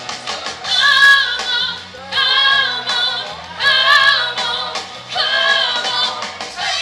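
A song with a female voice singing long, wavering held notes in short phrases over a steady low backing.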